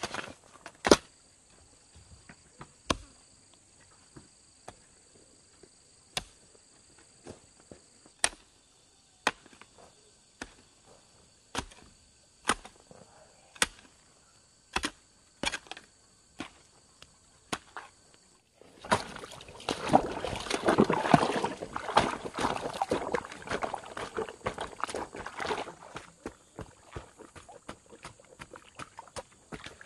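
Sharp knocks of carpentry work on wood, one every second or two. About 19 s in they give way to several seconds of dense, rapid knocking and rattling before thinning out again. A faint steady high whine sits underneath.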